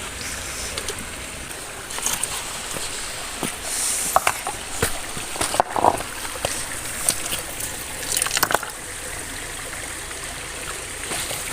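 Water of a shallow stream running steadily, with scattered small splashes and knocks as hands and stones are moved in it.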